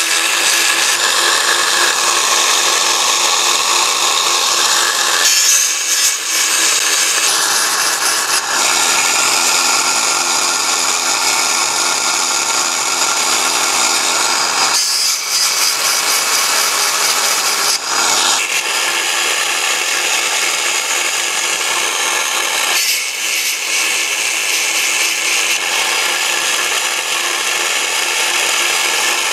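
Granberg 12-volt chainsaw sharpener, its small electric motor spinning a grinding stone against the cutters of a chainsaw chain: a steady motor hum under a loud rasping grind that changes in tone every few seconds.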